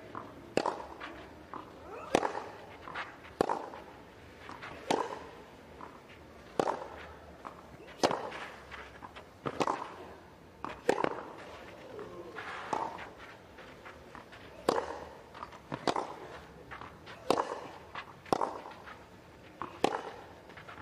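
Tennis balls struck by rackets in a long baseline rally on clay, a sharp pop about every second and a half, the players grunting with many of the shots.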